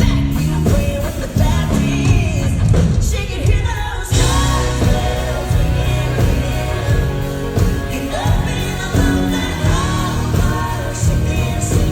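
A woman singing lead with a live band in a country-pop song. The band thins out briefly and comes back in hard about four seconds in.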